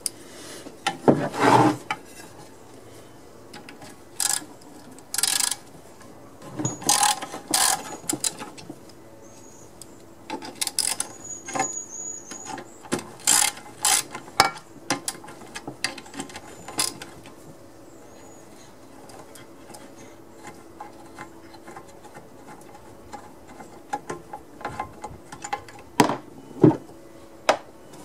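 Hand tools and metal engine parts clicking, rattling and knocking in irregular bursts as the fuel tank, carburetor and muffler are unbolted from a small Briggs & Stratton engine, with a quieter stretch in the middle.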